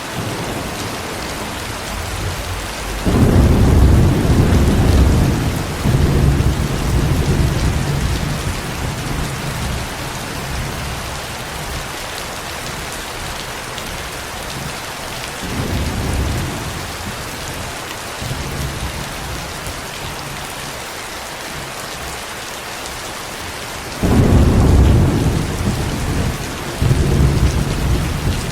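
Steady rain falling, with low rolls of thunder rumbling over it: a long roll starting about three seconds in and fading over several seconds, a short one around the middle, and another that starts near the end.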